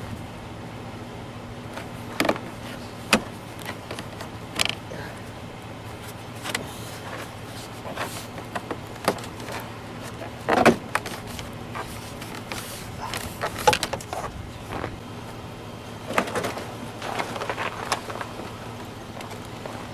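Scattered clicks, knocks and plastic rattles of hand work on a car door as its interior trim panel is pried off, over a steady low hum.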